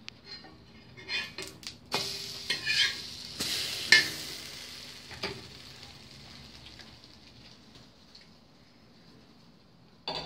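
Slices of dipped bread frying in a non-stick pan: a few knocks of the pan and utensil, then a sizzle that swells about two seconds in and fades away over the next few seconds. A short sharp sound near the end.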